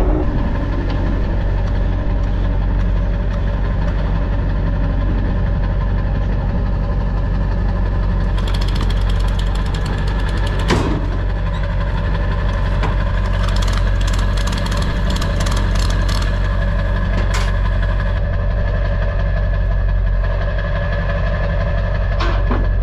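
Kubota skid steer's diesel engine running steadily, with a stretch of rapid metallic rattling midway.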